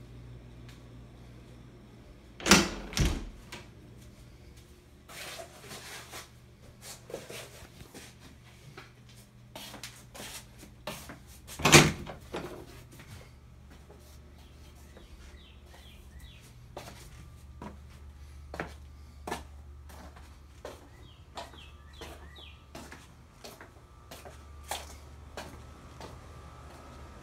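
A door banging twice, loudly, about two and a half seconds in and again about twelve seconds in, among smaller knocks and footsteps. Faint bird chirps come in during the second half.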